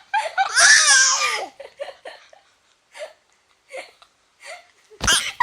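Laughter: a long loud peal in the first second and a half, then a few short soft bursts of laughter, and a sudden loud burst near the end.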